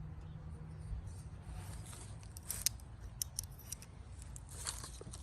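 Light metallic clicks and ticks from small parts and hand tools being handled while valves are removed from a cylinder head, scattered mostly through the middle and again near the end, over a steady low hum.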